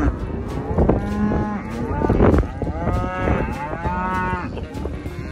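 Penned black calves bawling: about four long, wavering moos follow one after another, some overlapping.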